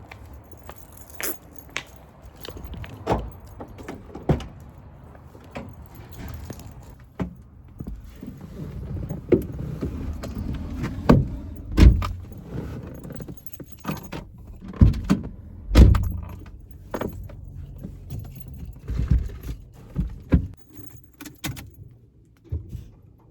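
Keys jangling amid a run of sharp knocks and clunks, loudest and busiest around the middle.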